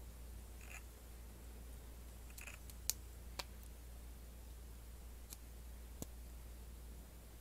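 Plastic LEGO Technic parts clicking as they are handled and pressed together: about six short, sharp clicks spread out, the loudest about three seconds in, over a steady low hum.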